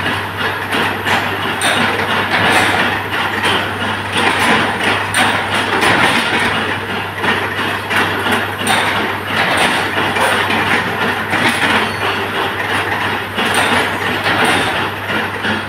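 25 kW induction forging machine running: a steady hum beneath a loud, continuous rattle and clatter of machinery.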